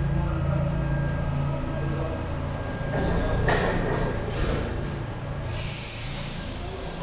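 Paris Métro MP73 rubber-tyred train standing in the station: a steady low hum, then a loud hiss of compressed air from the air brakes beginning about five and a half seconds in.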